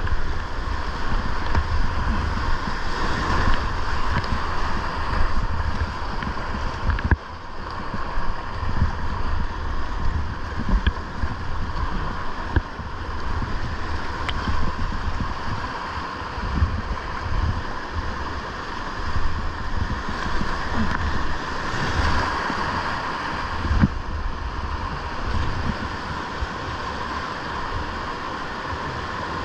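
Whitewater rapids rushing steadily, with wind buffeting the microphone in uneven low rumbles and a single sharp knock about seven seconds in.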